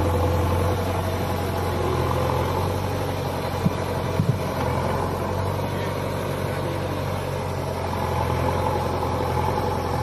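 Diesel engines of a JCB 3DX backhoe loader and a John Deere tractor running steadily with a low hum. A few short knocks come about four seconds in.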